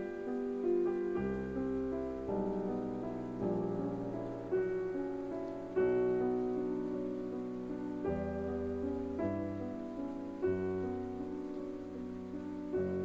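Slow, soft piano music, a new note or chord about every second.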